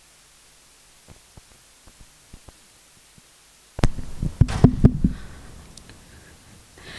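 Handling noise on a lectern microphone: a few faint clicks, then about four seconds in a sudden run of low thumps and sharp knocks lasting about a second and a half, fading to a low rustle.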